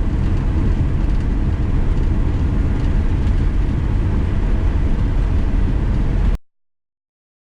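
Steady low rumble of a running vehicle engine, cutting off suddenly near the end.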